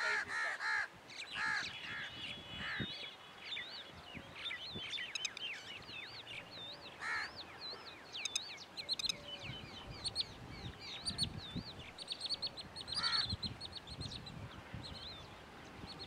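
Wild birds calling over farm fields: a steady chatter of high, quick chirps and twitters, with a few harsh, crow-like cawing calls near the start and two more later on.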